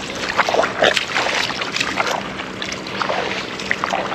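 Shallow tidal water splashing and trickling irregularly as the incoming tide floods over a mudflat.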